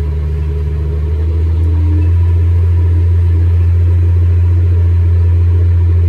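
Steady low drone of a John Deere S670 combine, heard from inside its cab. It swells slightly between one and two seconds in, then holds steady.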